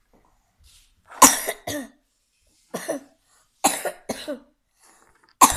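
A child coughing in about four short fits, some of one cough and some of two, with pauses between them.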